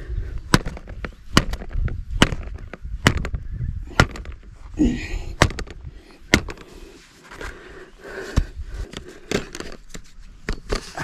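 A block of wood struck repeatedly against a poly pipe compression fitting, sharp knocks roughly once a second, driving the pipe home into the fitting.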